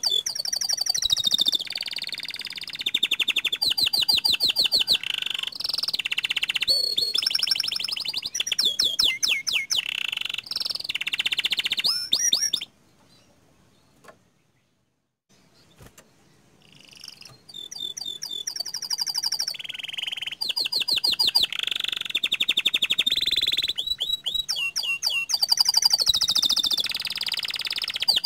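Domestic canary singing: long rolling trills and fast runs of repeated sharp notes. The song breaks off for about four seconds partway through, then starts again.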